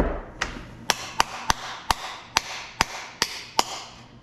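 Hammer striking a pump motor's cast aluminum housing about ten times in a steady series, two or three sharp blows a second, to break the housing and free the copper windings inside.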